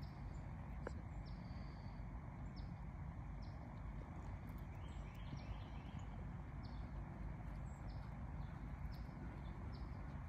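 A steady low rumble of wind on the microphone, with small birds giving short, high, falling chirps over it every second or so and a quick run of them about halfway through.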